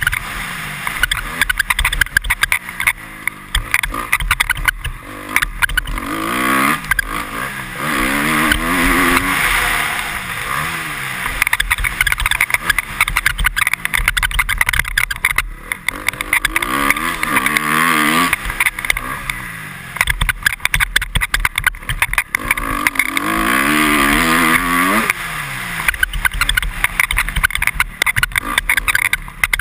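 2013 Honda CRF250R's single-cylinder four-stroke engine, heard from the rider's helmet, revving up and falling back again and again as the rider opens and rolls off the throttle. The helmet visor squeaks over the bumps.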